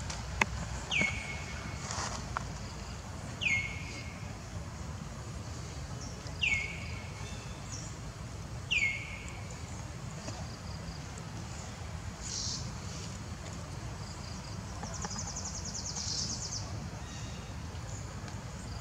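Outdoor ambience with a steady low background noise. Four short high calls come a few seconds apart, each sliding down in pitch and then holding briefly. About fifteen seconds in, a brief rapid pulsing buzz sounds high up.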